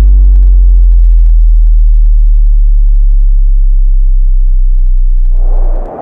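Deep synthesized drone with many overtones sliding down in pitch. About a second in it thins to a loud, steady low hum. Near the end the hum cuts off as a rushing noise swells in.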